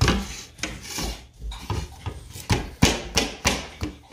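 Small hand chisel knocking and scraping at a treasure-chest dig-kit block, chipping it open in a quick, uneven run of taps, roughly three a second.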